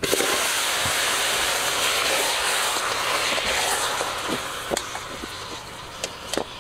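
Pork pieces dropped into hot oil in a metal pot, setting off a loud sizzle that starts suddenly and slowly dies down, with a few sharp clicks of the spatula against the pot as the meat is stirred.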